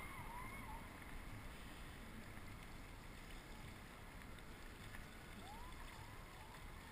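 Faint, steady water noise around a dragon boat sitting almost still on a river. A few faint rising-and-falling calls come at the start and again near the end.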